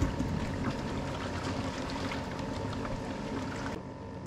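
Water lapping and trickling against the hull of a small aluminium fishing boat, with light ticks and a steady low hum underneath.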